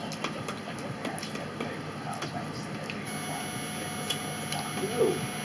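Eating at a table: a fork clicking and scraping on a plate with soft chewing, a scatter of small, irregular clicks. About halfway through, a steady high electrical whine sets in.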